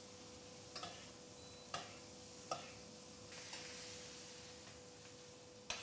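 Veal rump sizzling softly in butter in a stainless steel frying pan while it is basted, with a few light clicks of the basting spoon against the pan. A faint steady hum runs underneath.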